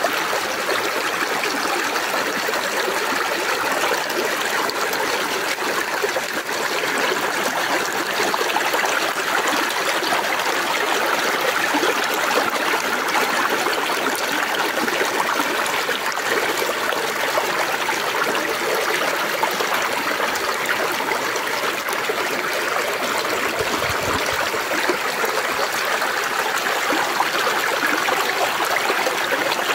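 Shallow river current babbling over rocks in a steady, even rush of water.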